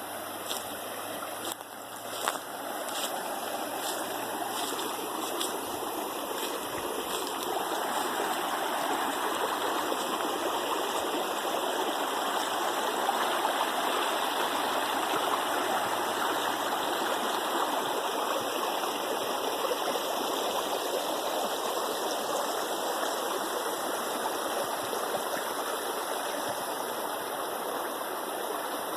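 Stream water rushing steadily, growing louder over the first ten seconds or so, with a few faint knocks near the start.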